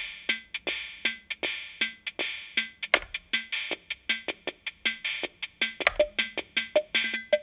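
Yamaha PortaSound PS-2's built-in rhythm section playing an electronic drum-machine pattern: steady hissy hi-hat-like ticks about three a second, with a stronger low beat about every three seconds. About six seconds in, a short pitched knock joins the pattern.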